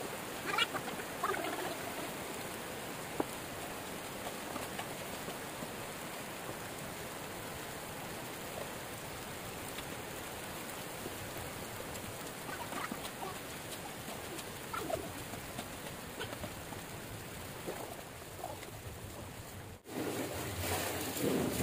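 Steady hiss of heavy rain mixed with the sizzle of krupuk crackers frying in hot oil in a wok, with a few faint short chirps. Near the end the sound drops out for a moment and comes back louder.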